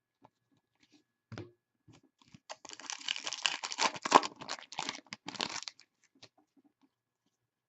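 An Upper Deck hockey card pack's foil wrapper being torn open and crinkled, a crackling tear lasting about three seconds, after a single soft knock.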